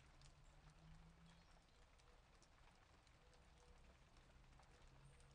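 Near silence: faint background hiss with a low hum.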